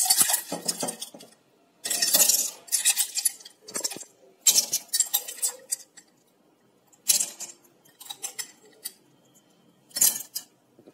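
Ice cubes being spooned into a glass mug: bursts of clinking and rattling of ice against glass and a metal spoon, about six times, a second or two apart.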